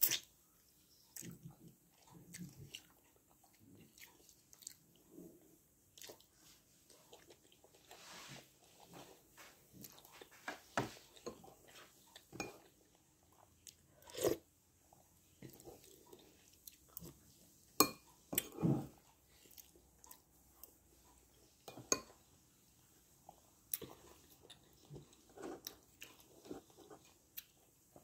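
A person biting and chewing chicken feet in irregular bouts, with occasional short sharp clicks.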